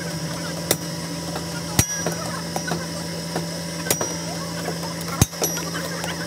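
A blacksmith's hammer strikes a piece of iron held in tongs on an anvil. Four sharp metallic blows come at uneven intervals of one to two seconds, and some leave a brief high ring.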